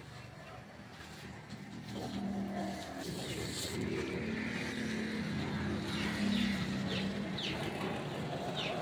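A motor vehicle engine running steadily, its hum building about two seconds in, with a series of short high chirps in the second half.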